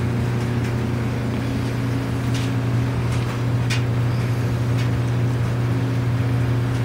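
Steady, unchanging low mechanical hum from a running machine, over a constant background noise, with a couple of faint clicks in the middle.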